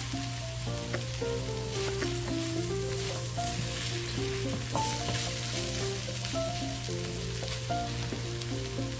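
Chopped fried milkfish sizzling in a hot steel wok while a wooden spatula stirs and scrapes through it. Soft background music of held, stepping notes plays under the sizzle.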